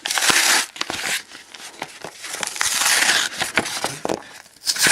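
Stiff plastic blister packaging crinkling and crackling as it is cut and pried open with a pocket knife, in several irregular bursts with sharp clicks between them.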